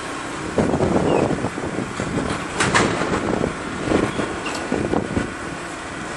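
Munich U-Bahn type A train standing at an underground platform with its doors open: a steady hum of the train and station, broken by irregular low bumps and rustling and one brief sharp hiss about two and a half seconds in.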